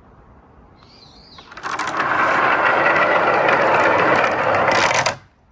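Marbles rolling along a marble run's long rail: a dense, steady rolling rumble that starts about one and a half seconds in, lasts about three and a half seconds, then stops fairly abruptly.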